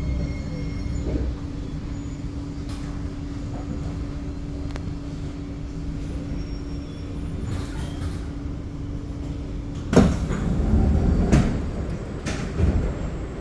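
Passenger doors of a C751B metro train opening at a station stop: a steady hum in the carriage, then about ten seconds in a sudden loud clunk, followed by a couple of seconds of sliding and further knocks as the doors travel open.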